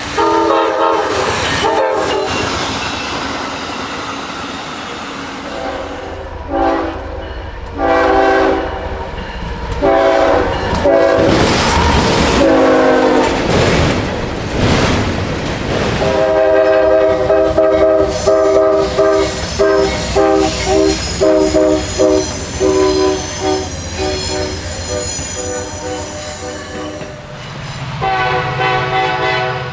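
Multi-chime train horn sounding a chord of several tones. It gives a long blast, then shorter blasts, a stretch where the pitch slides about halfway through, and a long run of rapid short toots, over a low rumble.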